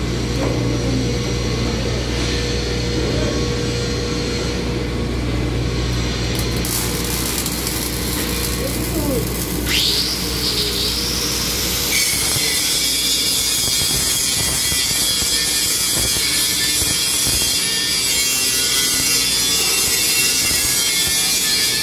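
Electric arc welding on steel bars: an even crackling hiss over a low steady hum. About halfway through the hum stops and the hiss grows stronger.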